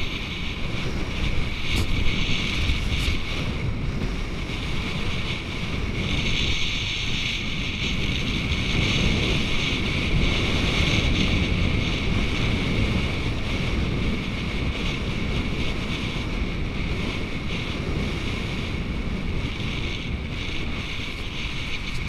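Wind rumbling on the microphone and water hissing past a kiteboard moving at speed, the hiss stronger from about six seconds in.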